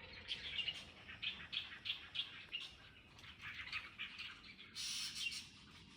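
Small birds chirping in quick, repeated short notes, with a brief hiss about five seconds in.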